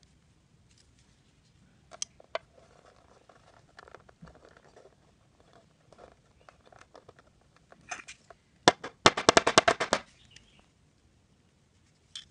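Hands handling a small jig hook and thread on a wooden tabletop: scattered light clicks and taps with some rustling, then a sharp click followed by a fast rattle of about a dozen clicks within a second, the loudest sound, about nine seconds in.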